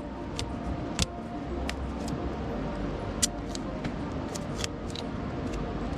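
Scattered sharp clicks and crackles of Gorilla Tape being handled and pulled from the roll, over a steady low background hum.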